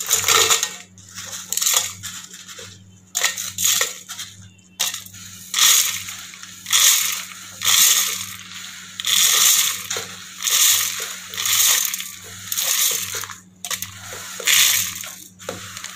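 Dry-roasted sambar spices (coriander seeds and dried red chillies) are being poured and scraped from a plate into an empty stainless steel mixer-grinder jar. The seeds patter and rattle against the metal in a dozen or so uneven short bursts.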